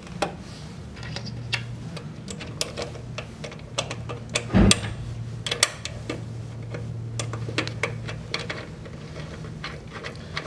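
Plastic wire spool and its retaining hub being handled and fitted on a MIG welder's spindle: a run of small clicks and ticks, with one heavier knock about halfway through.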